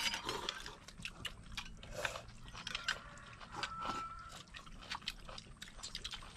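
People eating a meal: irregular clicks and taps of utensils against bowls and plates, with chewing.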